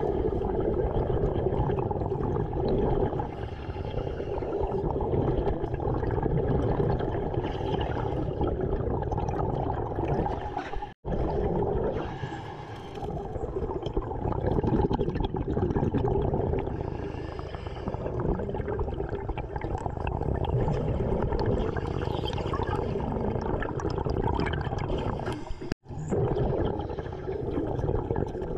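Underwater sound of a diver breathing through his air supply, with the rush and gurgle of exhaled bubbles swelling and easing every few seconds.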